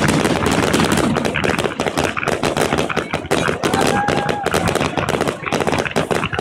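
Fireworks display: dense volleys of aerial shell bursts and crackling reports coming many times a second without a break, with a brief steady tone about four seconds in.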